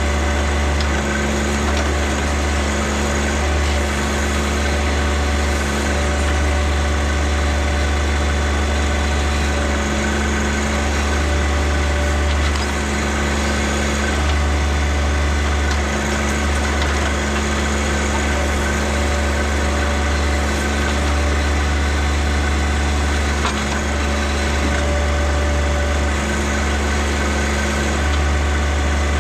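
John Deere tractor engine running steadily with slight rises and dips in level, as when working a backhoe.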